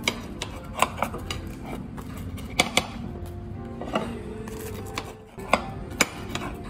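Metal pizza-cutting utensils clinking and scraping against a ceramic plate as a whole pizza is cut into slices, about eight sharp clinks, over background music.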